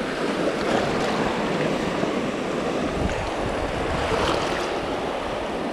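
Small waves washing along a beach shoreline, a steady rushing of water, with some wind buffeting the microphone.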